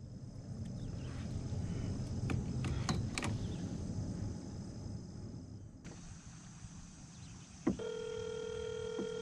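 A phone call ringing out through a smartphone's speaker: after a click about three-quarters of the way in, a steady ringback tone sounds for a little under two seconds. Before that, a few light clicks over a low rumble of handling noise.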